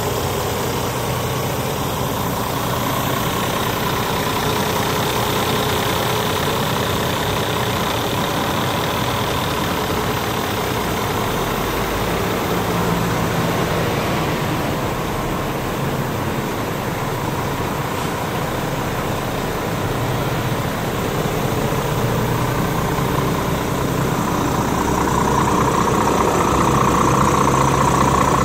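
Scania R450 tractor unit's 13-litre inline-six diesel idling steadily, growing somewhat louder near the end.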